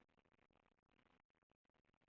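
Near silence: faint, even background hiss.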